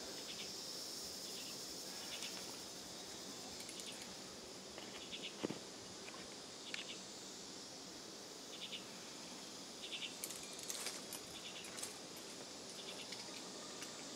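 Faint outdoor ambience: a steady high insect drone with brief chirps every second or two.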